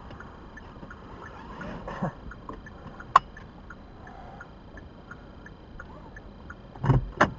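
Quiet car cabin with faint, regular light ticking, a sharp click about three seconds in, and two loud knocks in quick succession near the end.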